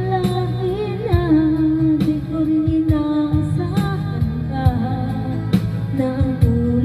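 A woman singing a slow ballad into a handheld microphone over a backing track with bass and a drum beat about once a second; she holds long notes with a slight vibrato.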